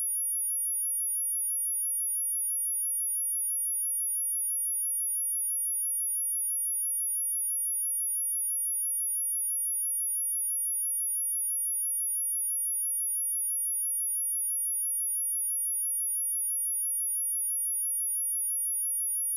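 A steady, high-pitched pure sine tone at 10353 Hz, one unchanging note, played as a speaker test and speaker-cleaning tone.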